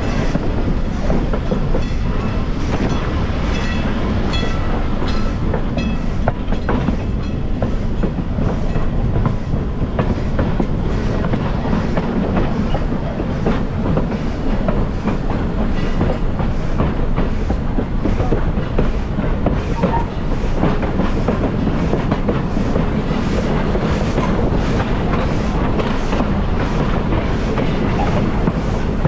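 Train wheels rolling along the track: a steady rumble with a clickety-clack of the wheels over the rail joints.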